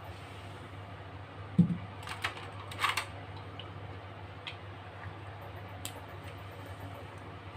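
Wooden chopsticks clicking against a wok while pork bones blanch in hot water, over a steady low hum. A dull thump about one and a half seconds in is the loudest sound, followed by a short run of clicks.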